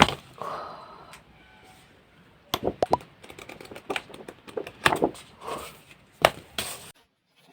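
Hands handling packaging and printed items: scattered clicks, taps and short rustles, ending in a sudden drop to quiet near the end.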